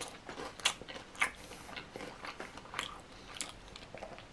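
A person chewing a mouthful of animal-style fries covered in crushed Hot Cheetos with the mouth closed, close to the microphone. Irregular crunching, with a few sharper crunches about a second apart.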